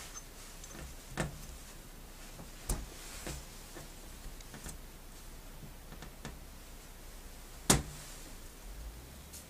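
Scattered sharp clicks and knocks of small hard ball-valve parts being handled on a bench, with the loudest knock about three-quarters of the way through.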